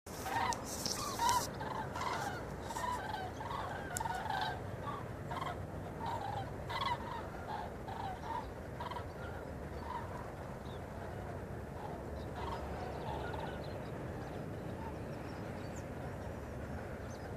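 A flock of common cranes calling in flight overhead: many overlapping calls, thick in the first half and thinning out toward the end, over a steady low rumble.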